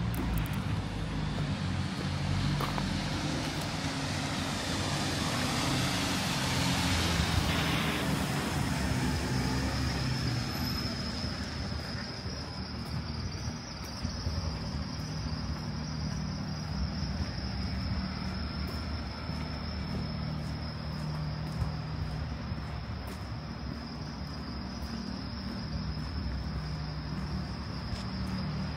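City street traffic: a vehicle passes close by, its tyre noise swelling and then dropping away sharply about eight seconds in, over a low steady hum of engines. After it has passed, a thin steady high-pitched tone carries on above the traffic.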